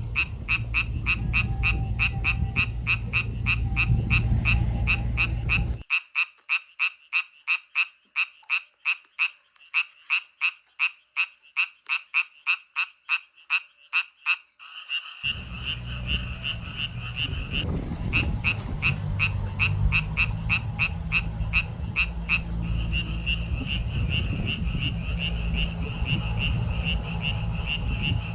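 Frogs croaking in a rapid, even series, about four calls a second, with more frogs trilling steadily from about halfway through. A low steady rumble runs under them, drops out for several seconds about six seconds in, then returns.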